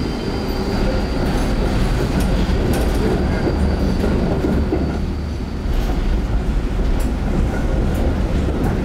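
PCC tram no. 2000, built 1960, running on its rails: a steady low rumble with scattered clicks and knocks from wheels and track. It eases off briefly about halfway through, then picks up again.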